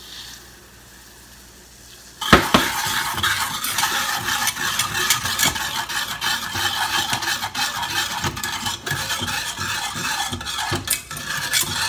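A wire balloon whisk beating rapidly in a metal saucepan, scraping and clinking against the pan as it stirs sugar and matcha powder into simmering water to make syrup. It starts suddenly about two seconds in, after a faint steady hiss.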